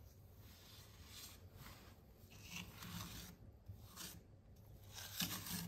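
Small steel trowel scraping and smoothing wet pigmented lime plaster: a series of faint, irregular rasping strokes.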